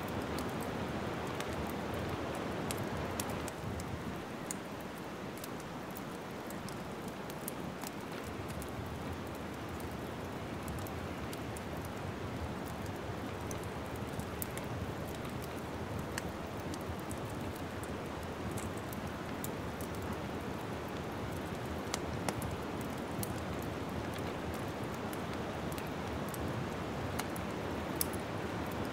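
Wood fire crackling in a fireplace: a steady soft hiss with scattered sharp pops and snaps.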